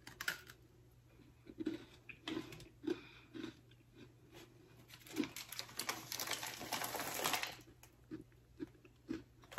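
A person biting and chewing a chocolate-creme Oreo cookie: faint crunches and mouth sounds, spaced roughly two a second at first, with a longer, denser crunchy stretch after about five seconds.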